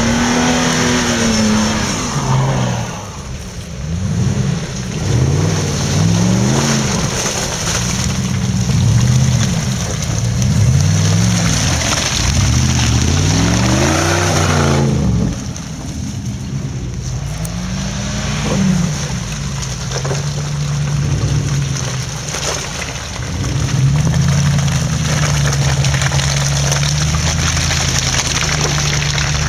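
Off-road 4x4 engines revving up and falling back over and over as the vehicles push through deep mud, then running at a steadier pitch for the last part.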